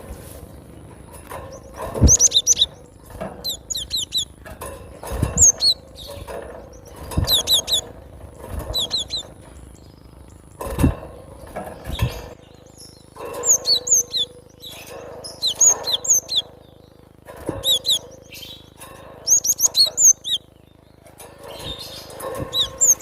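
Cinereous tit (glatik batu) singing in quick clusters of high, sharp chirps, a fresh cluster every second or two, with short dull thumps in between.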